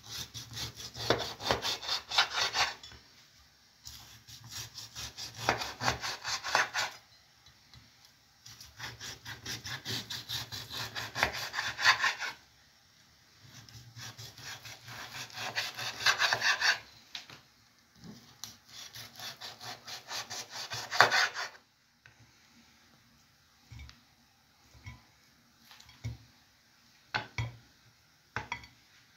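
A large kitchen knife sawing back and forth through a slab of smoked pork belly on a wooden cutting board, in five bursts of quick strokes a few seconds each. After these come a few scattered light knocks.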